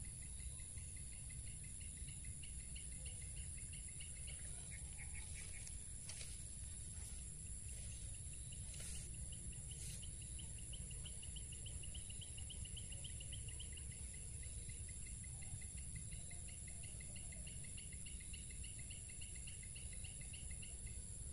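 Insects chirping in the swamp grass: a steady high whine with a rapid pulsing trill over it, a few short chirps or clicks in the first half, and a low even rumble beneath.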